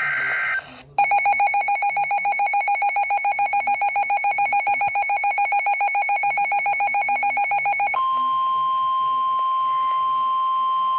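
Emergency alert broadcast signals: a short burst of high data-burst tones, then a rapidly pulsing electronic alarm tone for about seven seconds. It switches to a steady single-pitched NOAA Weather Radio alert tone, which signals that a warning is about to be read.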